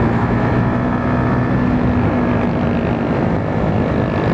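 Motorcycle engine running at a steady cruising speed with wind rushing past, heard through a mic inside the rider's helmet fitted with a fur windscreen.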